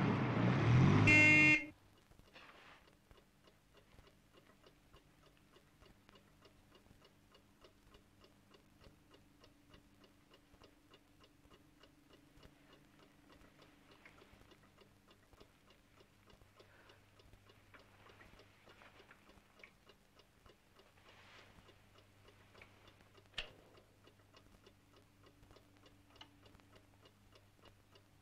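A clock ticking faintly over a low steady hum. About 23 seconds in there is a single sharp click as a bedside lamp is switched on. At the very start a loud burst of car and street noise cuts off suddenly.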